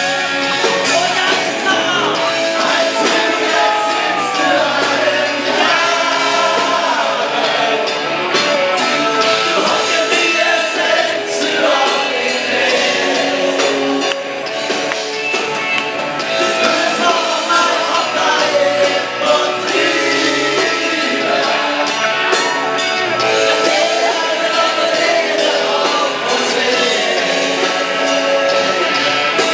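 Live rock band playing on stage with male vocalists singing into microphones, drums keeping a steady beat.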